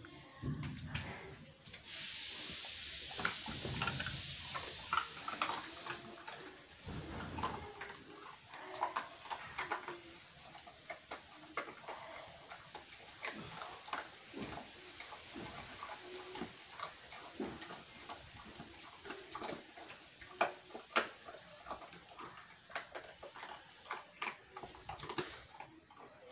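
Rottweiler chewing and crunching mutton bones: a run of irregular sharp cracks and clicks. About two seconds in, a steady hiss starts and stops about four seconds later.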